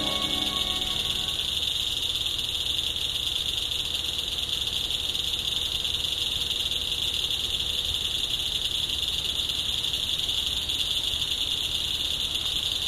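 Steady, high-pitched insect chorus that keeps going without a break, with the end of a piece of music fading out in the first second or two.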